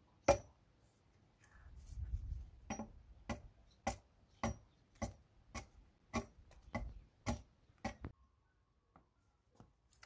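Small hatchet chopping at the wood of an upright pole, trimming it: a steady run of sharp strikes, a little under two a second, that stops near the end and leaves a few faint clicks.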